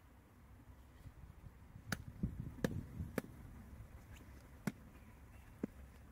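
Hard shell of a giant freshwater mussel knocking and scraping against wet concrete as it is picked up and handled: several sharp clicks and knocks, the first about two seconds in, with duller thuds among them in the middle.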